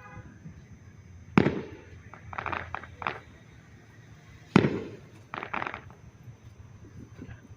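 Aerial fireworks bursting: two loud booms about three seconds apart, each followed by a short cluster of smaller pops.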